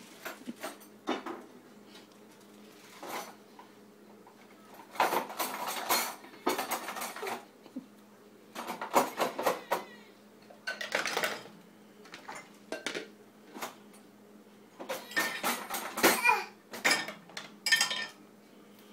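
Dishes and cutlery clattering and clinking in irregular bursts as they are handled and put away, with quiet gaps between.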